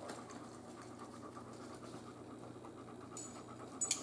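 A dog panting steadily, with a short, sharp scratchy noise near the end.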